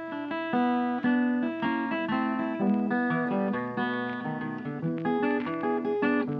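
Background music: an acoustic guitar playing a quick run of plucked and strummed notes.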